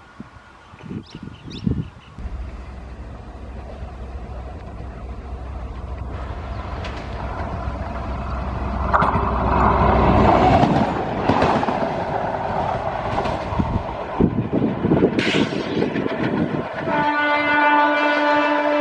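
Self-propelled track inspection car approaching with a low engine rumble that grows louder, then passing close with its wheels clattering over the rail joints. Near the end it sounds one long, multi-tone horn.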